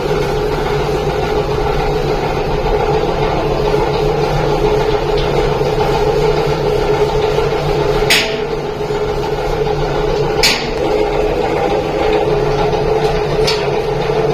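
A machine running with a steady hum, with three sharp knocks a few seconds apart, the first about eight seconds in.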